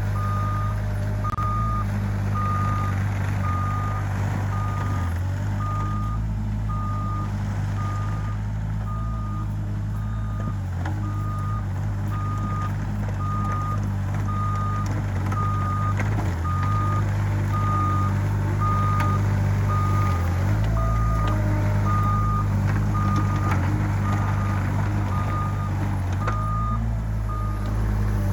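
Excavator's diesel engine running steadily while its warning alarm beeps about once a second, one high tone per beep.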